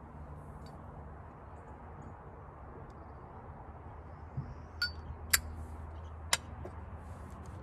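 Three sharp metallic clicks, the last two about a second apart and the loudest, after a soft thump, from handling a lighter while lighting a corn cob pipe, over a steady low background hum.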